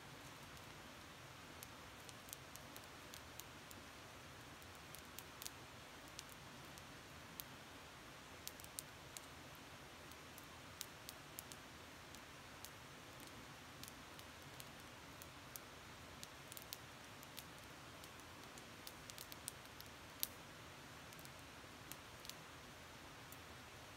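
Faint, irregular crackling of a small wood campfire: scattered sharp ticks over a quiet background hiss.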